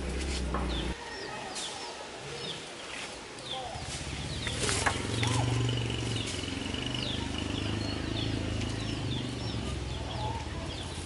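Small birds chirping in many short repeated calls, with chickens clucking, and a thin steady high tone for a few seconds in the middle.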